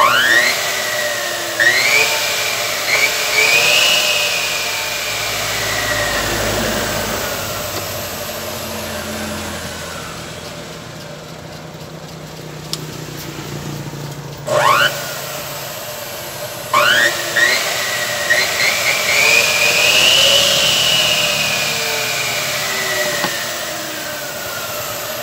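Aluminium cutting saw's electric motor switched on, its whine rising as it spins up and then slowly falling as it winds down. It is started again about two-thirds of the way in, with a short burst followed by a second start that runs up to speed before winding down near the end.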